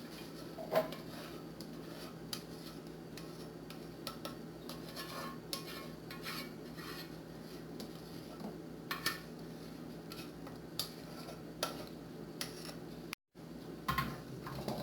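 A utensil clinking and scraping against a dish, in scattered light taps over a steady low hum, as the dessert mixture is transferred into a mold.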